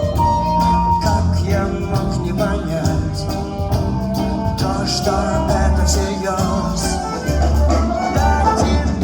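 Live band music: a song with a steady drum beat, a bass line and a melody over it.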